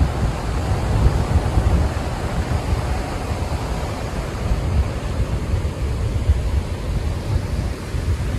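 Small waves breaking and washing up a sandy shore, a steady rushing noise, with wind buffeting the microphone in a low, fluttering rumble.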